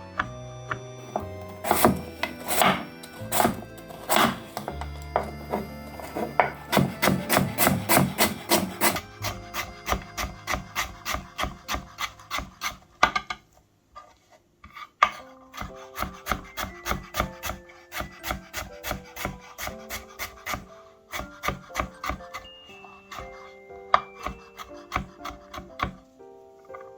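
Kitchen knife cutting on a wooden cutting board in quick, regular strokes, about three to four a second, with a short pause about halfway through, over soft background music.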